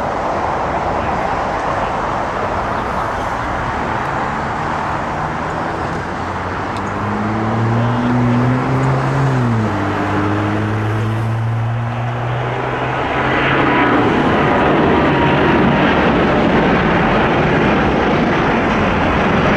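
Airbus A330-900neo's twin Rolls-Royce Trent 7000 turbofans at takeoff thrust: a steady jet roar as the airliner takes off and climbs out. Low droning tones bend down in pitch about halfway through, and the roar grows louder about two-thirds of the way in.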